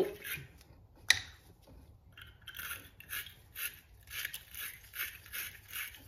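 Wire-brush battery terminal cleaner twisted against a corroded battery earth strap terminal, scraping off the corrosion in short repeated scratchy strokes, about two to three a second. A single sharp click comes about a second in.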